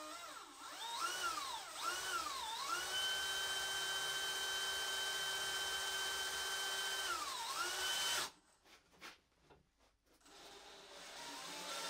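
DeWalt DCD999 cordless hammer drill driving a 10 by 300 mm full-threaded screw into thick wood in first gear. The motor's pitch rises and falls a few times, then holds steady for about four seconds, and it winds down and stops about eight seconds in, with the screw fully sunk.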